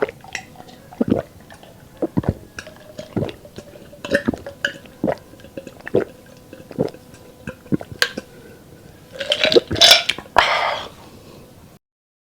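Close-miked eating: wet chewing and mouth smacks about once a second, then a louder, longer mouth sound near the end.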